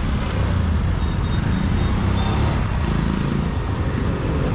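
Steady road traffic noise: the low rumble of engines and tyres of passing vehicles, with a few faint short high-pitched tones.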